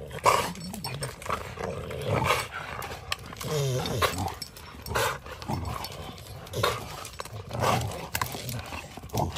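Dogs growling as they tug and chew at a stick in a tree, with sharp knocks and rattles from the stick and their chain collars coming and going throughout.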